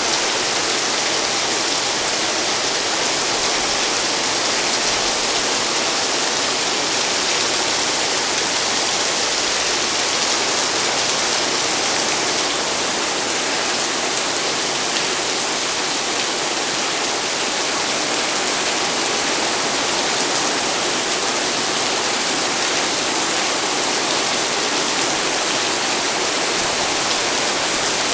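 Heavy rain pouring down: a dense, steady hiss that holds at the same level throughout.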